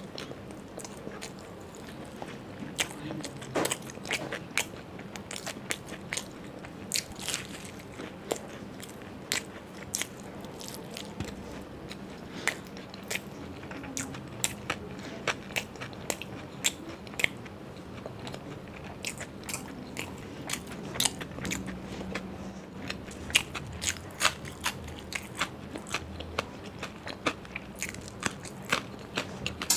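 A person chewing fried paneer samosa close to the microphone: wet mouth sounds broken by many irregular, sharp crunches of the crisp pastry.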